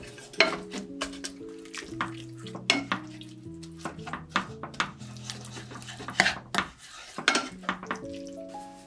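Wooden spatula stirring and scraping around a nonstick frying pan of beef, onions and melting blocks of hayashi rice roux, with many short scrapes and knocks against the pan. Soft background music with held notes plays underneath.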